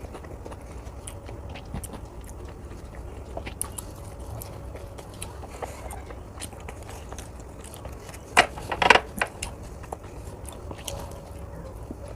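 A person chewing and eating puri with curry close to the microphone: small wet mouth clicks throughout, with a louder cluster of bites a little past the middle.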